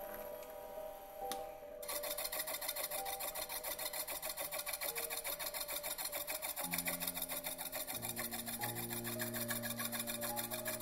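Slitting saw on a small milling machine cutting a slot in a metal block, a fast, even rasping chatter of the teeth biting that starts abruptly about two seconds in. Quiet background music with held low notes underneath.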